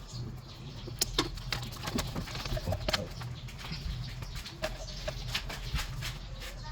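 Chickens clucking a few times over scattered sharp clicks and taps, like hand tools on metal, with a low steady hum underneath.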